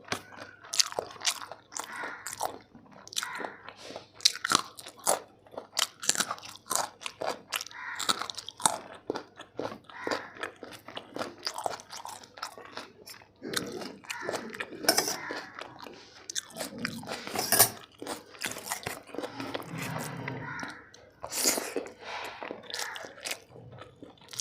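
A person chewing and biting chicken biryani close to the microphone: a dense, irregular run of sharp mouth clicks and chews.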